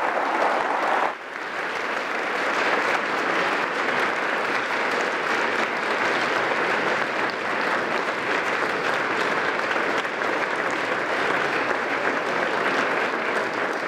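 Audience applauding: steady, dense clapping from a large crowd, with a brief dip about a second in before it carries on evenly.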